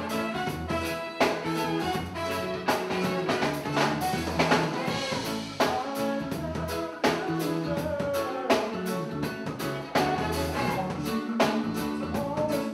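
Live band playing a steady groove, a strong drum hit falling about every one and a half seconds under electric bass and a singer's voice.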